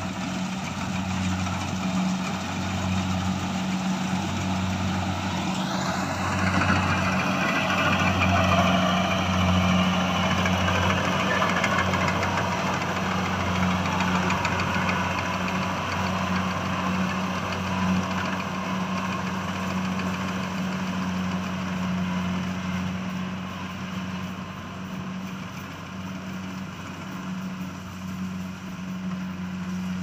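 Tracked rice combine harvester running steadily as it cuts and threshes rice: a low engine hum under a broad machine drone that grows louder as it passes close and fades as it moves away. A brief rising whine comes about six seconds in.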